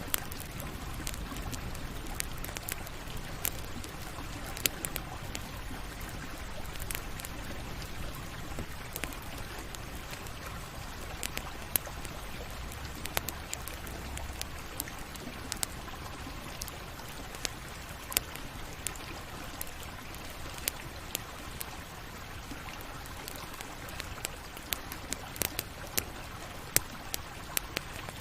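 Campfire burning: a steady hiss of flames with irregular sharp crackles and pops of burning wood, a few of them louder than the rest.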